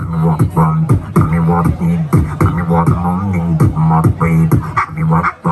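Beatboxing through a microphone and PA: a steady beat of deep falling kick-drum sounds about twice a second over a held low humming note, with short crisp snare and hi-hat clicks between.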